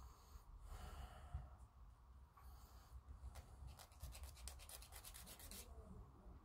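Faint rasping of a small hobby file on a plastic model-kit part, a few scattered strokes and then a quick run of rapid back-and-forth strokes after about three seconds.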